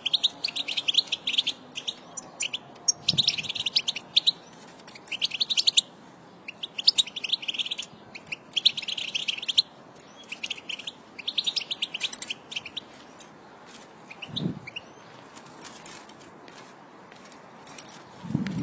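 A flock of European goldfinches twittering: bouts of rapid, high chirps about a second long, one after another, thinning to scattered faint chirps in the last few seconds.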